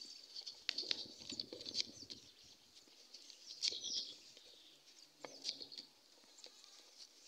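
Pen scratching on paper in short, faint strokes as a line of an equation is written, with a few faint high chirps in the background.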